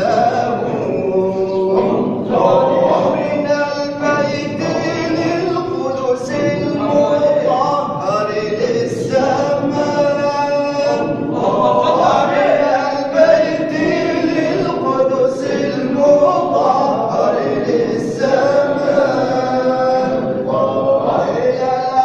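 Male voices singing a Sufi hadra chant (inshad) in chorus, the melody wavering and sustained without a break.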